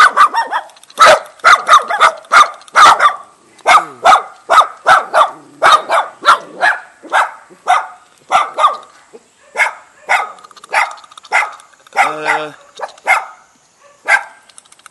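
Young dogs, a white Jindo among them, barking repeatedly at a stranger: a steady string of short barks about three a second, easing a little toward the end, with a couple of longer, lower barks about twelve seconds in.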